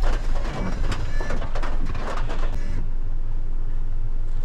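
Refuse truck's diesel engine running, heard from inside the cab, with scattered clicks and knocks over it. About three seconds in the sound changes abruptly to a steadier low engine hum.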